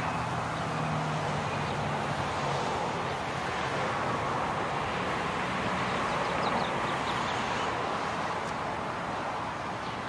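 Steady outdoor street-traffic noise, with a faint low hum for the first two and a half seconds.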